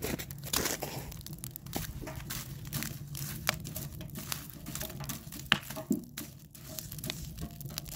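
Wood fire crackling and popping in a small steel camping stove, with irregular sharp snaps over a low steady rush. Now and then wood knocks and scrapes as a stick prods the burning logs.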